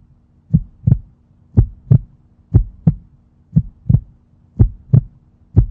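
Heartbeat sound effect: steady lub-dub double thumps about once a second over a faint low hum, a regular, normal heart rhythm.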